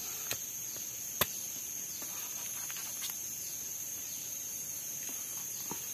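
Steady high-pitched drone of forest insects, with a few short sharp knocks of a machete blade against a durian husk, the loudest about a second in.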